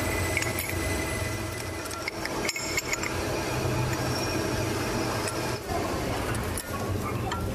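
Metalworking sounds: a steady low machine hum with scattered metallic clinks and taps.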